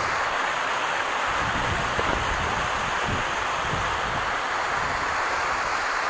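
Steady rush of falling water from a waterfall, with low buffeting on the microphone between about one and four seconds in.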